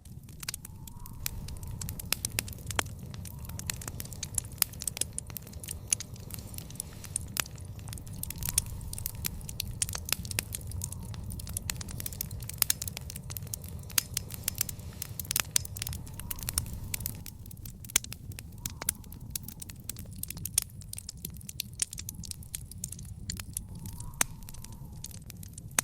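Wood fire in an outdoor fire pit crackling and popping, with dense irregular sharp snaps over a steady low rumble.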